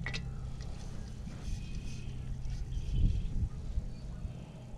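Stainless steel coffee thermos being opened and handled: a sharp click as the lid starts to turn, then the lid unscrewing, with a dull bump about three seconds in. A low steady hum and rumble sit underneath.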